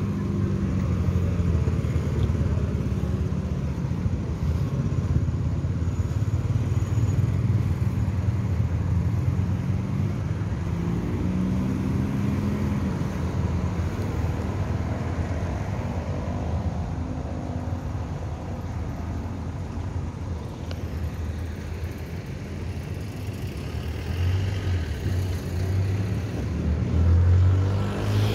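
Road traffic: cars and motorbikes passing on a street, their engines running and rising and falling as they go by, with one louder vehicle passing near the end.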